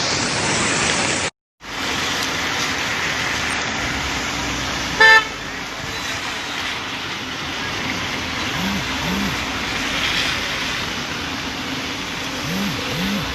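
A single short car horn toot about five seconds in, the loudest sound, over a steady rushing noise that briefly cuts out shortly after the start.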